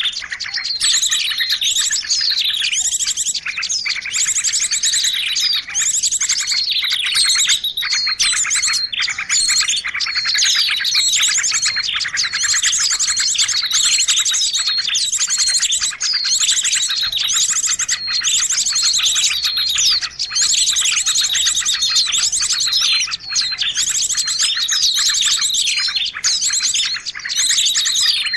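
A dense, unbroken chorus of many small birds chirping and twittering over one another: a bird-lure (pikat) recording meant to draw small birds in.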